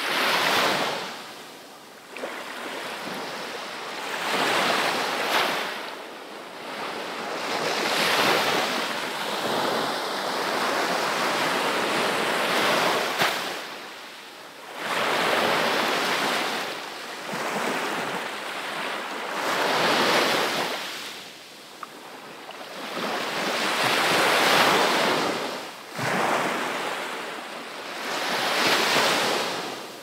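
Gentle sea waves breaking on a sandy beach and washing up the shore, the surf swelling and ebbing every few seconds.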